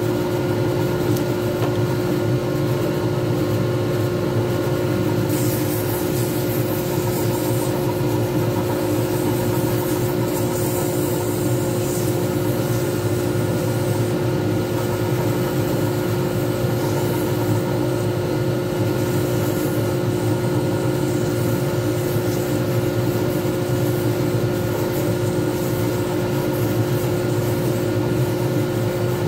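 Lathe motor running steadily and spinning a resin pen blank, with a steady hum. A brighter hiss from a pad or abrasive held against the spinning blank swells and fades a few times during finishing.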